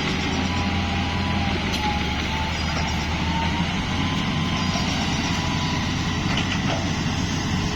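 Diesel engine of heavy earthmoving machinery running steadily, a deep continuous rumble, with a thin faint whine wavering slightly in pitch above it.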